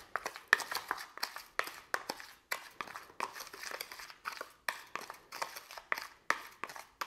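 Metal spoon stirring a dry spice rub of salt, pepper and ground spices in a plastic bowl: a steady run of short scraping strokes, about two or three a second.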